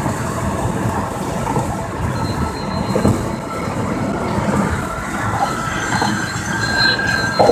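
Loud, steady wind and road noise in a car at highway speed, a dense rushing that the uploader calls really loud wind, with faint high whistling tones over it from about two seconds in.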